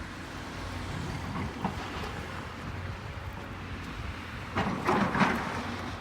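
Demolition machine tearing down a building: its engine runs steadily, and from about four and a half seconds in there is a loud clattering crash of breaking and falling debris.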